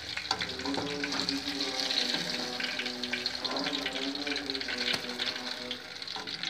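Hot oil in a kadai sizzling with a steady hiss and many small crackles, as pakoras deep-fry. A few faint held tones sound underneath.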